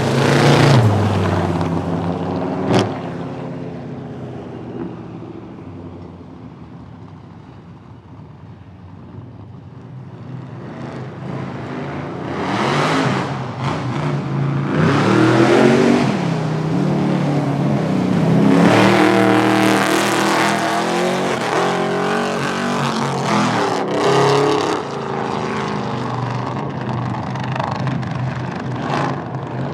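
Cars running spectator drag race passes. At the start one car goes by with its engine pitch dropping and fades away; after a lull, engines rev up again in several rising surges, as though climbing through the gears, and run on loudly to the end.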